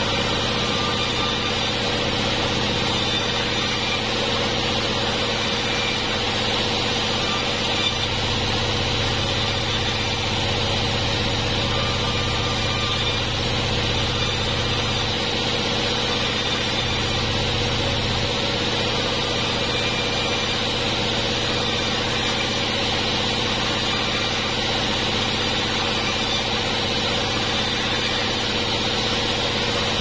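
Sawmill band saw running steadily and ripping cananga (ylang-ylang) wood into narrow beams: a continuous machine hum with an even, unbroken cutting noise.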